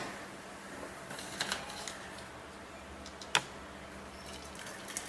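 Light clinks of a kitchen strainer against the vessels as boiled milk is strained: a couple of soft taps about a second and a half in and one sharp click a little past three seconds.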